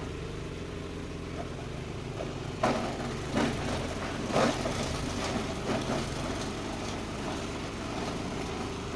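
An 8 hp diesel engine runs steadily, driving a chopper-grinder that is shredding young-coconut husk waste through a coarse 45 mm screen. From about two and a half to six seconds in, a run of sharp knocks and cracks cuts through the engine's drone as pieces are fed in and smashed by the blades.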